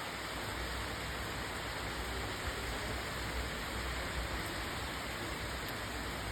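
Steady rain falling, an even continuous wash of drops.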